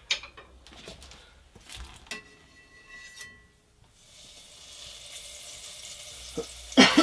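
A knob of butter going into a hot pan on a small wood-burning cook stove: a few utensil knocks and a brief metallic ring, then from about four seconds in a sizzle that grows steadily louder as the butter melts. A loud clatter comes near the end.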